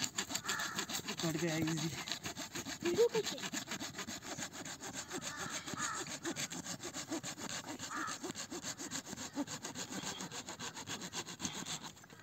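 Small hand saw cutting through a dry tree branch in quick, steady back-and-forth strokes, stopping near the end.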